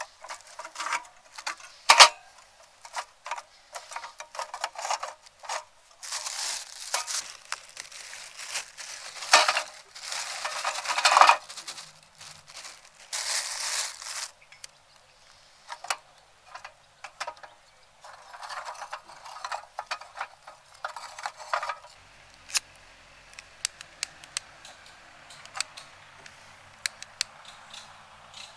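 Handling noise: sharp clicks and clinks of small hard objects, with several bursts of rustling a few seconds long. A faint low hum comes in about two-thirds of the way through.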